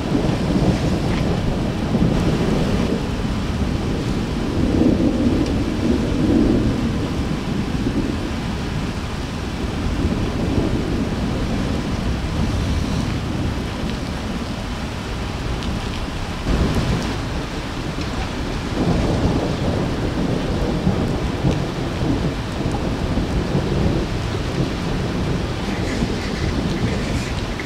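Thunderstorm: deep rolls of thunder swell and fade several times over the steady hiss of heavy rain.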